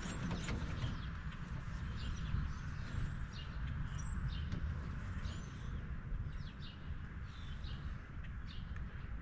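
Small birds chirping on and off, short high calls, over a steady low outdoor rumble.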